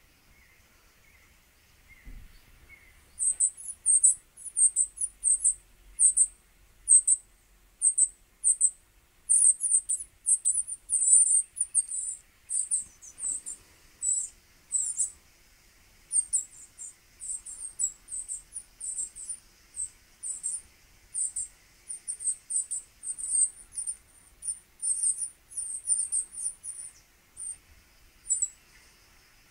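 Small bird chirping from a tablet's speaker: short, very high chirps, a few a second, in a long busy run that starts about three seconds in.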